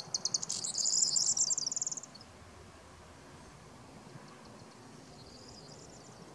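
Corn bunting singing one short song, about two seconds long: a few separate ticks that speed up into a dense, high, crackling jangle. A fainter jingle of the same kind follows about five seconds in.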